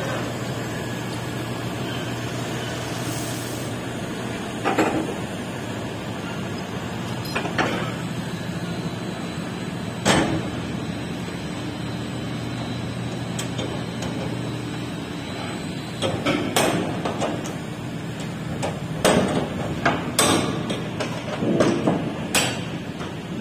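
Metal clanks and knocks from a steel shipping container's door handles and locking bars being worked as its doors are opened. The clanks are scattered at first and come thicker in the last third. Under them runs a steady low hum that stops a little past the middle.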